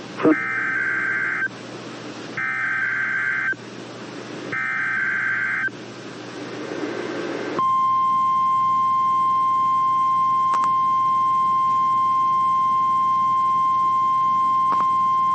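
NOAA Weather Radio weekly alarm test received over the radio. First come three warbling bursts of SAME digital header data, each about a second long and separated by hiss. About seven and a half seconds in, the steady 1050 Hz warning alarm tone starts and holds, with two faint clicks partway through.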